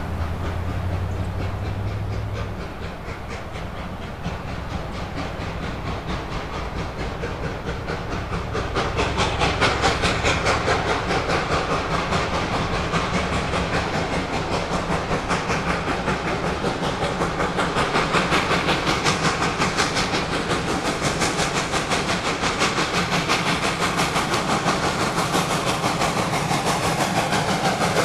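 Reading & Northern steam locomotive 425 working its train, its exhaust chuffing in a rapid, even beat with steam hiss. It grows louder about nine seconds in. A low steady tone dies away in the first couple of seconds.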